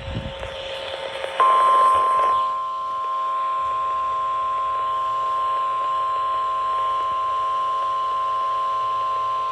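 NOAA Weather Radio warning alarm tone: a single steady 1050 Hz tone coming in about a second and a half in and held unchanged, after a moment of radio hiss. It is the weekly test of the weather alert tone that activates warning receivers.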